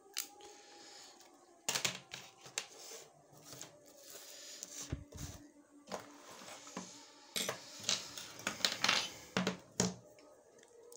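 Irregular plastic clicks, snaps and clatter as a Jio F90 feature phone's housing is pried apart and its board and display are lifted out, with small parts set down on the bench.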